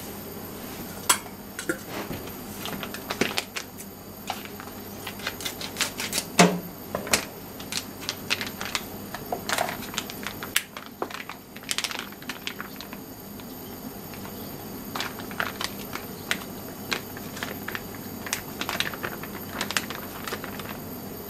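Plastic food packaging and a plastic container being handled on a kitchen counter: irregular clicks, crinkles and light knocks, with one louder knock about six seconds in.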